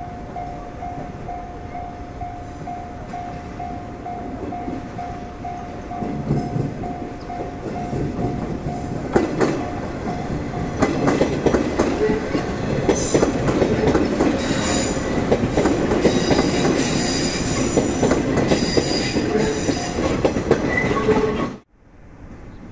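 A level crossing alarm sounds in a steady, fast pulse, then a four-car JR West 115 series electric train passes close by, its wheels clattering over the rail joints and squealing in high tones. The sound cuts off abruptly near the end.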